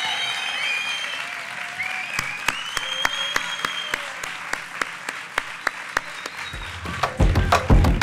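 Crowd applauding and cheering. About seven seconds in, music with a heavy bass beat comes in over the applause.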